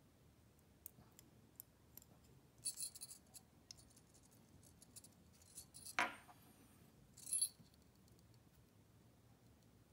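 Faint clicks and scrapes of steel tweezers and fishing wire being handled, with a sharp click about six seconds in and two short scratchy rustles, near three and seven seconds in.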